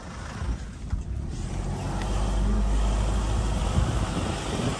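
Vehicle driving on a rough dirt track: a low engine and tyre rumble that grows louder about two seconds in, with a few knocks from the uneven ground.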